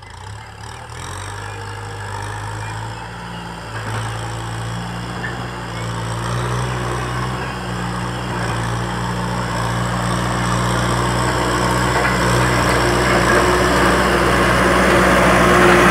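Kubota M6040 SU tractor's diesel engine running at a steady pitch as the tractor drives through brush with its front blade lowered. It grows steadily louder as it comes near.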